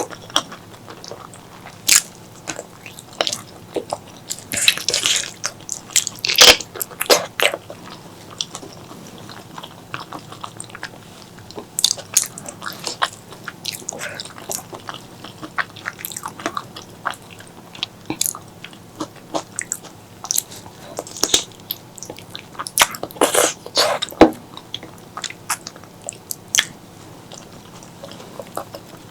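Close-miked eating sounds of spicy pork leg curry and rice: wet chewing, smacking and sucking, with clusters of sharp, crisp clicks around a quarter of the way in and again about three-quarters through.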